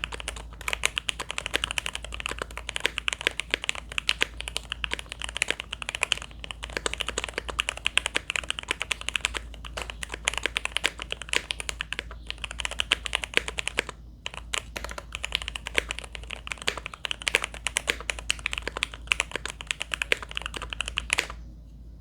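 Fast typing on an Alpine65 gasket-mount mechanical keyboard with lubed and filmed Lavender switches on a POM plate and GMK keycaps: a dense, even stream of poppy keystroke clacks. The typing pauses briefly about two-thirds of the way through and stops just before the end.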